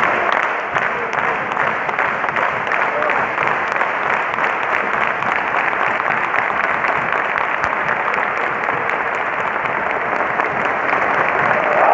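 Large football crowd clapping, with the claps of fans right beside the microphone standing out over the mass of the stadium's applause.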